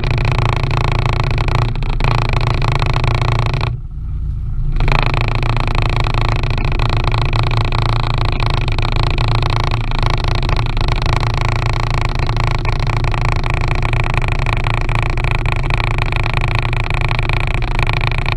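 The RIB's outboard motor running steadily, with a low drone and higher steady tones; the higher part of the sound drops out for about a second, around four seconds in.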